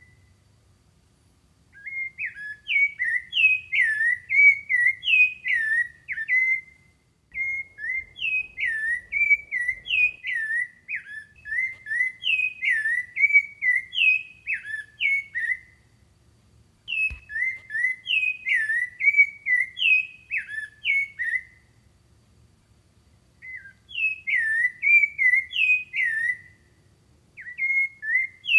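A songbird singing long phrases of quick, up-and-down whistled notes, each phrase lasting several seconds and separated by short pauses of a second or two.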